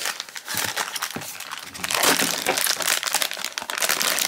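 A cardboard blind box being handled open and the crinkly foil pouch inside it rustled and pulled open by hand: a dense, irregular crinkling.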